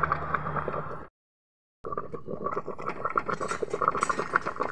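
Chicken and broth boiling in a metal pot under a banana-leaf cover, with a dense crackling and sputtering. The sound cuts out for under a second about a second in, then goes on, a little louder near the end.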